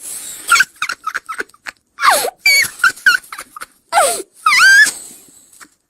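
A small child laughing in very high-pitched squeals: quick bursts of giggles, with two longer shrieks that fall in pitch about two and four seconds in.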